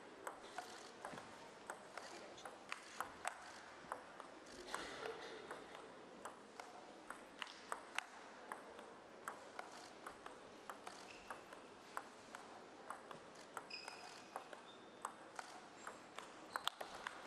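Table tennis ball clicking off the rackets and the table in a long rally: a steady string of faint, sharp ticks, two or three a second.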